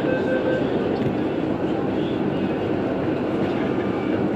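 Interior running sound of MTR West Rail Line train cars, two recordings played together, one in each stereo channel: a steady rumble and hiss, with a steady two-note hum that stops about half a second in.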